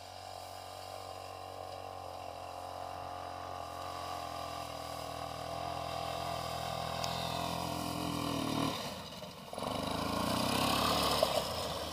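Engine of a homemade four-wheel-drive quad bike running steadily and growing louder as the bike comes closer. About nine seconds in it briefly drops away, then picks up louder up close.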